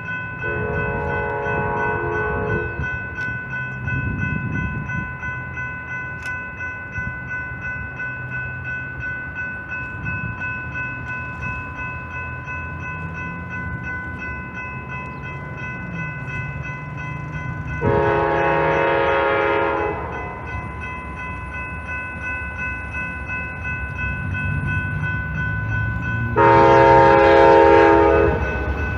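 Horn of an approaching Amtrak P42DC diesel locomotive, heard over a low rumbling locomotive engine: a blast of about two seconds near the start, a second blast about two-thirds of the way through, and a third near the end. A steady high-pitched ringing lasts throughout.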